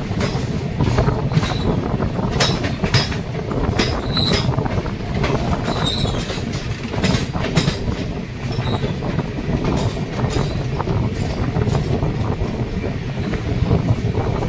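Passenger train running on rails: a steady low rumble with irregular wheel clatter over the track, and a few short high squeals in the first half.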